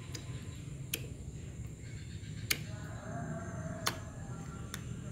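Fingers pressing and poking clear slime in a small plastic tub, giving a few scattered sharp clicks and pops over a low steady hum.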